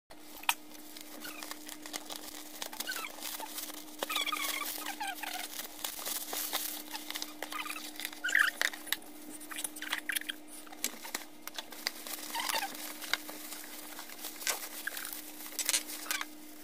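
Packaging being handled and unwrapped by hand, with cardboard and plastic wrap crinkling and rustling. Many small clicks and short squeaks of plastic rubbing come through, over a faint steady hum.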